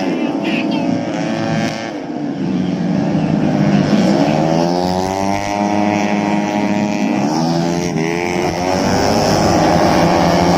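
Race motorcycles running at high revs on track. The engine pitch climbs a few seconds in, drops sharply near the middle, then climbs again as they accelerate.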